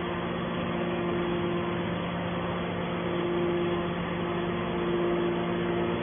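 Hydraulic scrap metal baler's power unit running with a steady mechanical hum, a higher tone within it coming and going.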